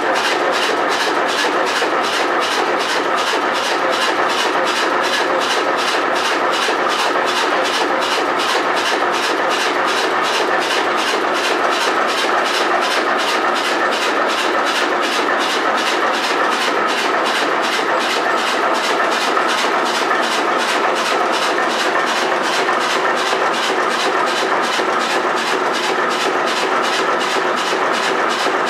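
1925 two-cylinder, 40 hp Brons ship's engine running steadily at an even speed, a fast, regular beat of its firing and valve gear.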